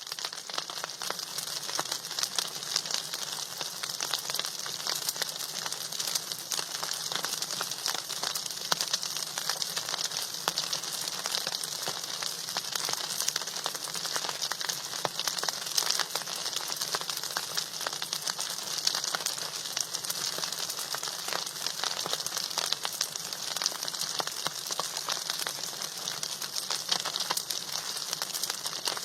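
Food frying in hot oil in a pan: steady sizzling with dense, fine crackles that go on without a break.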